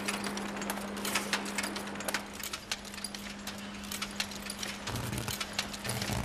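Automatic chain-making machine running: a quick, irregular clatter of clicks over a steady hum.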